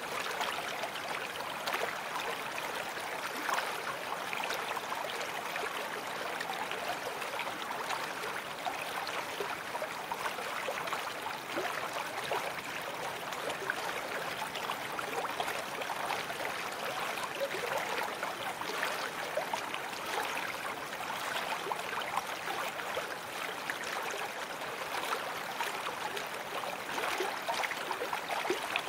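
Babbling brook: water running in a steady, even rush with continual small gurgles and splashes.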